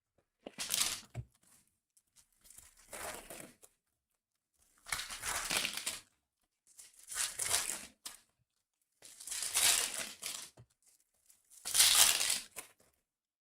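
Plastic and foil card packaging being torn open and crumpled by hand, in six short crinkly bursts about two seconds apart.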